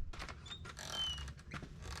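Metal parts being handled while a vise is bolted to its stand: light clicks with a couple of short, high creaks.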